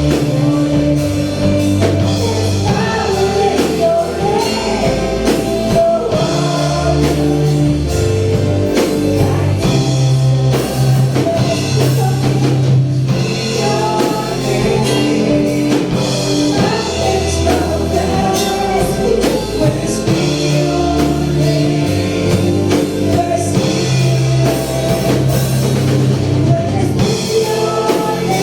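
Praise-and-worship song with singing over a band of drum kit, guitar and bass, playing steadily.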